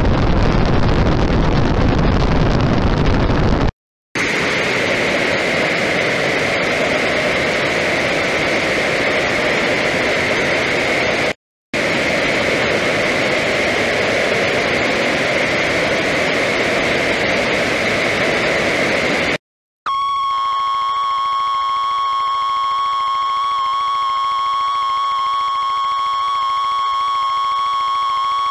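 Harsh electronic noise soundtrack in abrupt blocks separated by brief silent cuts: a loud, dense static hiss, then hissing noise with a whistling band running through it, and from about twenty seconds in a steady, piercing high tone with many overtones.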